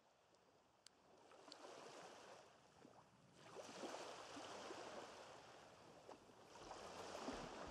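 Faint small waves washing in on the shore, the wash swelling and fading about three times.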